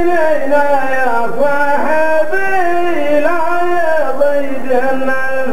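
A single man chants a line of qaltah poetry into a microphone. It is one voice in a slow, drawn-out melody, holding each note and gliding from pitch to pitch.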